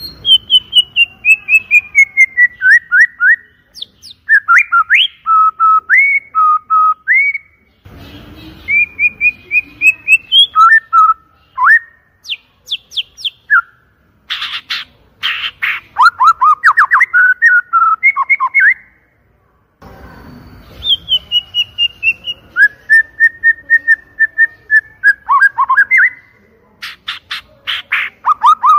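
White-rumped shama (murai batu) singing loudly: clear whistled phrases of rapid notes sliding down and up, broken by short pauses, with a few harsh buzzy notes mixed in.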